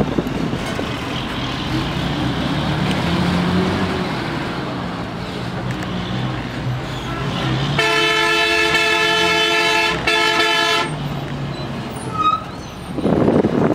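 Bus driving over a bridge, heard from inside: a steady engine and road rumble. Past the middle a loud vehicle horn blares for about three seconds, with a brief break near its end.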